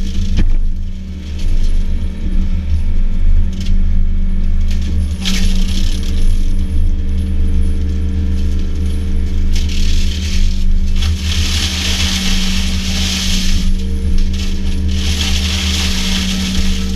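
Yanmar VIO50 mini excavator's diesel engine running steadily under load while a Berti hydraulic mulcher head shreds vegetation, giving repeated bursts of crackling, clattering noise, the longest and loudest in the second half.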